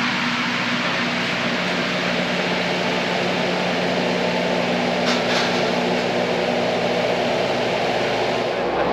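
A steady mechanical drone with a low, even hum, with a brief faint hiss about five seconds in.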